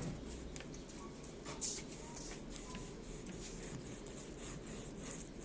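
Kitchen knife scoring the skin of a whole fish on a wooden cutting board: a few short slicing scrapes and taps of the blade.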